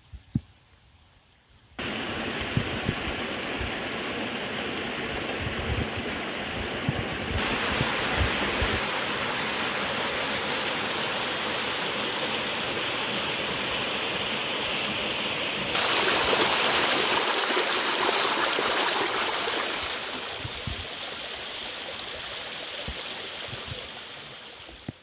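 Rushing water of a small mountain stream and waterfall, a steady full splashing noise that starts abruptly about two seconds in. It grows louder in steps, is loudest a little past the middle, then eases off and fades out near the end.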